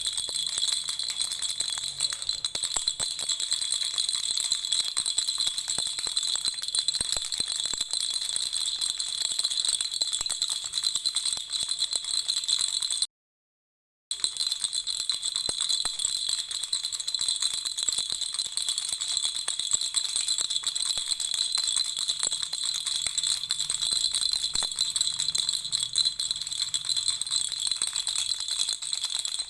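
Lollipop-shaped baby rattle toy shaken steadily, a dense continuous jingling rattle. It drops out for about a second of silence roughly halfway through.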